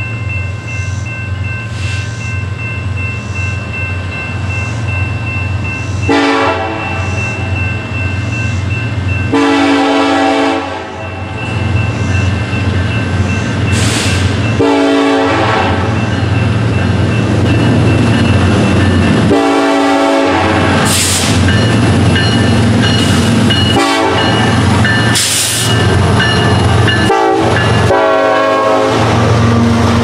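Air horn of a BNSF SD70ACe diesel locomotive leading a coal train, sounding a series of long and short blasts as it approaches, over the steady rumble of the locomotives. The rumble grows louder as the train closes in, and near the end the loaded coal hoppers roll past on the rails.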